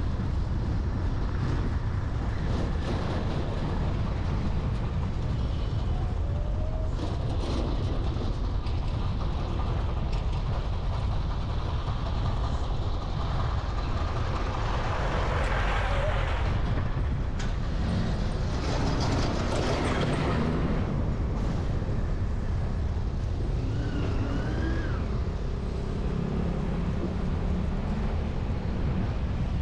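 Street traffic ambience: a steady low rumble, with motor vehicles passing twice about halfway through.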